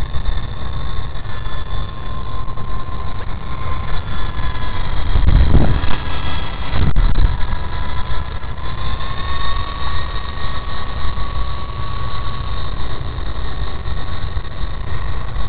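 WLtoys V913 RC helicopter in flight: its electric motor and rotors give a steady whine that shifts a little in pitch, rising slightly about two-thirds of the way through. Wind rumbles on the microphone, with stronger gusts around the middle.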